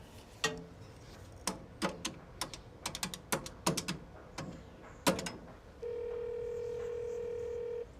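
Payphone in use: a run of sharp clicks from the keypad and handset as a number is dialed, then a steady phone tone for about two seconds as the call rings through.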